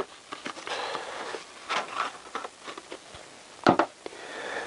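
A small packet crinkling and rustling as a new motorcycle fork oil seal is taken out of it by hand, with a sharp click about three-quarters of the way through.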